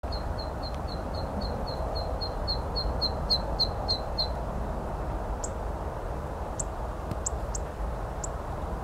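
A bird calling a rapid run of short, high notes, about four a second, growing louder and stopping about four seconds in, then a few single higher chirps. Underneath is a steady low rumble.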